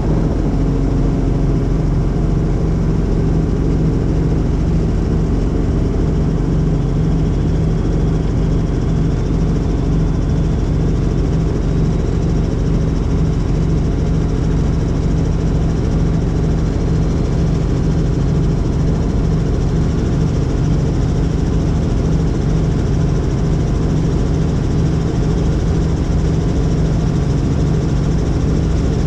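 Helicopter in flight, its rotors and engine running at a steady, loud drone with no change in pitch.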